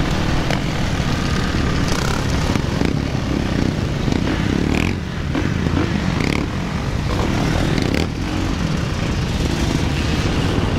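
A pack of dirt bikes and quad ATVs running and revving on the road, with wind buffeting the microphone of the moving camera.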